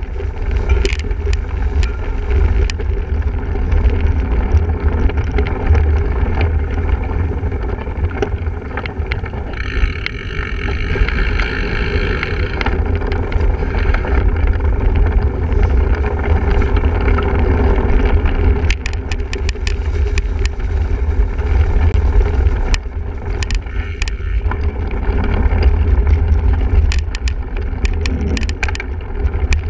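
Riding noise from a single-speed cyclocross bike at race pace: a steady heavy low rumble of wind and ground on the microphone, with many sharp rattles and clicks from the bike over rough ground, thickest near the start and through the last ten seconds.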